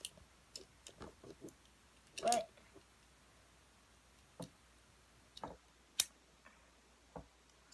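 Scattered small clicks and taps of plastic mouse parts being handled and pried apart by hand, the sharpest about six seconds in.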